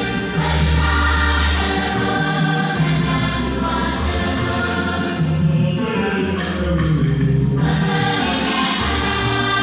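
Gospel choir singing together with musical accompaniment, several voices over steady low bass notes.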